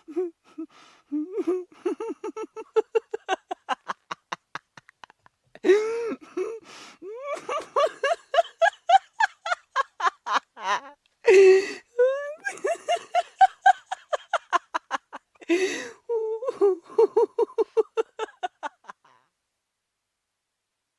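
A person laughing hard in long runs of rapid ha-ha-ha pulses, about five or six a second, climbing in pitch through each run. Sharp gasping in-breaths break the laughter three times, and it stops about nineteen seconds in.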